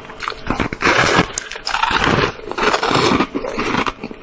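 Ice being bitten and crunched between the teeth, in repeated crackly bursts about a second apart.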